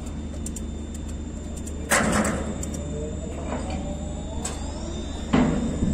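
Two sharp clanks of lashing gear being fitted on a steel ship deck, about two seconds in and again near the end, over a steady low rumble.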